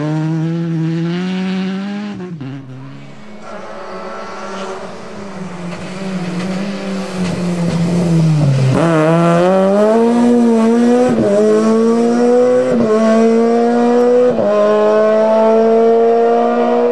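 Toyota GT86 rally car's flat-four engine at full stage pace. It comes off the throttle about two seconds in, drops to low revs about nine seconds in, then pulls hard with climbing revs through three quick upshifts, each heard as a short dip in pitch.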